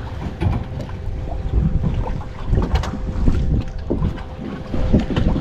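Wind buffeting the microphone with a low rumble, with scattered small clicks and knocks throughout.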